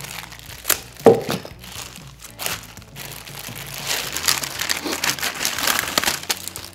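Clear plastic packaging bag crinkling and rustling as a microphone stand's boom arm is pulled out of it, densest in the last few seconds. There is a short thump about a second in.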